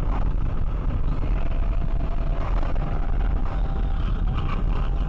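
Steady low road and engine rumble heard from inside a car's cabin at highway speed, with a faint steady whine from about a second in.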